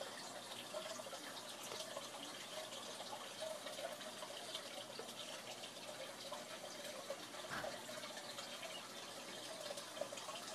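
Saltwater aquarium's water circulation: a steady trickle and splash of moving water, with fine dripping and bubbling ticks throughout.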